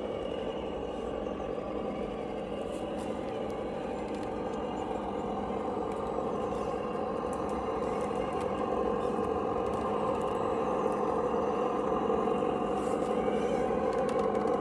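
A Traxxas TRX4 RC crawler running, with its Reely sound module playing a simulated engine sound through a small speaker; it holds steady and grows gradually louder.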